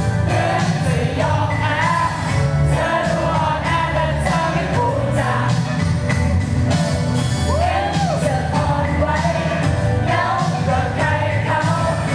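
Pop song played loud over a stage PA: a group of girls singing into microphones over a backing track with a steady beat and bass.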